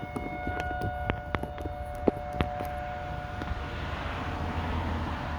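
Outdoor tornado warning siren sounding a long steady tone over a low rumble, with scattered sharp clicks.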